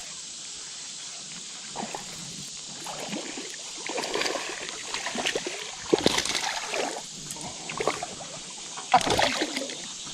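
Splashing and sloshing in shallow creek water as a hooked smallmouth bass is brought in, with sharp splashes about 6 and 9 seconds in, over the steady rush of the creek.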